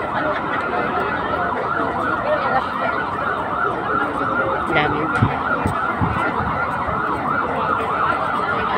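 Electronic emergency-vehicle siren sounding a fast yelp, its pitch rapidly rising and falling over and over, steady in level, over crowd murmur.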